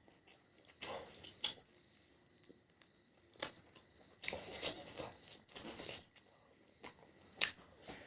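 Close-miked eating sounds: irregular bites, chewing and tearing at food, with sharp smacking clicks now and then and a longer stretch of chewing in the middle.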